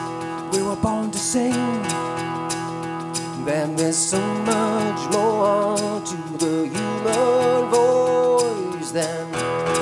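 Live acoustic guitar music built up with loops: strummed guitar over a steady held drone, with a wavering melodic line rising and falling above it.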